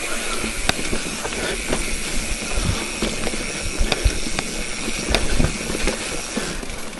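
Bicycle rolling along a rough trail: a steady hiss of tyres on loose ground and rushing air, with scattered sharp clicks and rattles from the bike.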